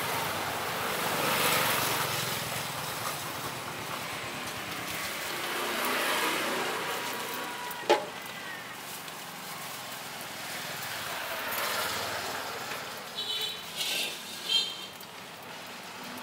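Street traffic passing in slow waves, with a sharp knock about eight seconds in and a few short, high-pitched chirps near the end.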